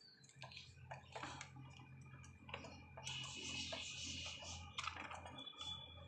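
Young budgerigars pecking and nibbling at fresh leafy greens: an irregular run of small, crisp beak clicks and crunches, with a busier stretch of rustling near the middle.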